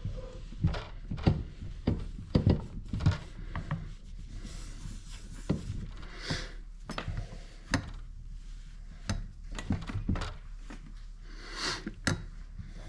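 Shop towel rubbing and swishing over an engine piston as it is wiped clean after its ring grooves were scraped of carbon, with scattered light knocks and clicks of the piston being handled in a bench vise.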